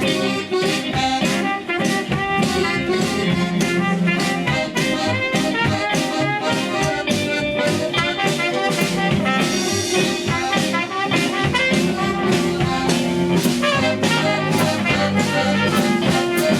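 A band playing an instrumental intro, with brass horns carrying the melody over a drum kit.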